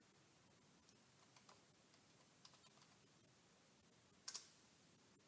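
Faint computer keyboard typing for about two seconds, then a single sharper, louder double click about four seconds in.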